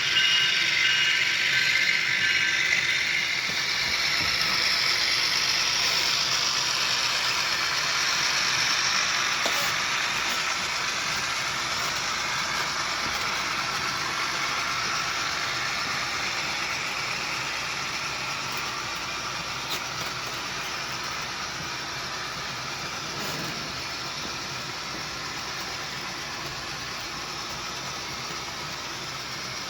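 Model ES44AC diesel locomotives with on-board sound running past on track: wheels clicking and rattling with gear and motor noise, mixed with the decoder's diesel prime mover sound. The sound slowly gets quieter as they move away.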